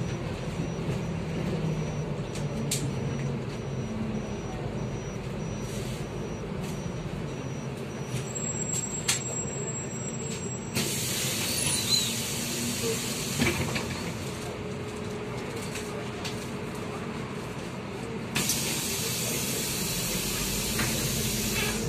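MAZ-203 city bus heard from inside, its engine running low and steady, with two long hisses of compressed air from the bus's pneumatic system: one starting suddenly about eleven seconds in, the other in the last few seconds. A thin high tone sounds for a couple of seconds just before the first hiss.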